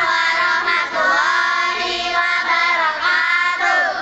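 Children singing a song together with long held notes; the singing stops abruptly near the end.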